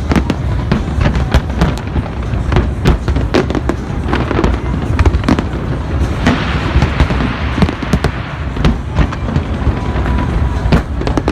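Fireworks display: many sharp bangs of shells bursting in quick, irregular succession over a continuous low booming rumble.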